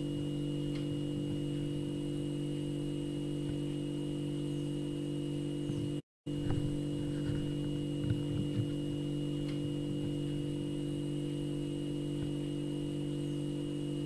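Refrigerator humming steadily, a low hum with a thin high steady tone above it and a few faint ticks. The sound cuts out completely for a split second about six seconds in.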